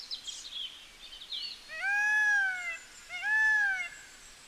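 An animal calling twice, each call about a second long, rising quickly and then falling slowly in pitch, after a few faint bird chirps.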